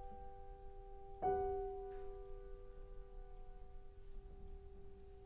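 Slow background piano music: a held chord fades, and a new chord is struck about a second in and left to ring out slowly.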